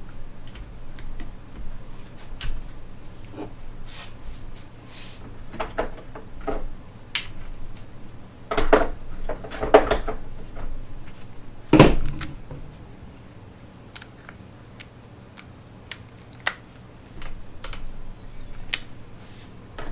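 Bolts, tools and small metal parts clicking and knocking as they are handled during a gearbox teardown, with a few louder knocks about nine to twelve seconds in.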